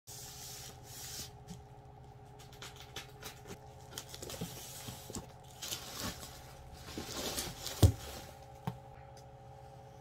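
Plastic shipping bag crinkling and rustling as a cardboard box is pulled out of it and handled, with scattered light knocks. There is one heavy thump about eight seconds in, over a faint steady hum.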